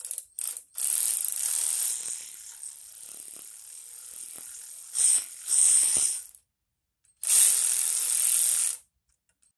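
Cordless electric ratchet running in several bursts as it snugs up the Farmall Super A's intake/exhaust manifold nuts, working from the middle out before final torquing. The longest runs come about a second in and again near the end, with two short bursts in between.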